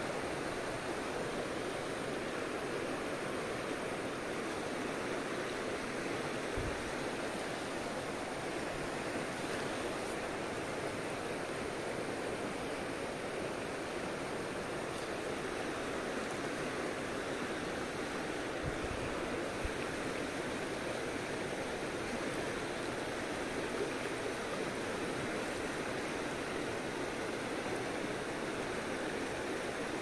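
River current rushing and rippling steadily past the bank.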